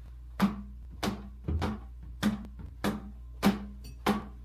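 Shoes slapped hard against the side of a rubber-band-wrapped watermelon: about seven sharp, dull smacks at a steady pace, a little over half a second apart. The melon holds and does not burst.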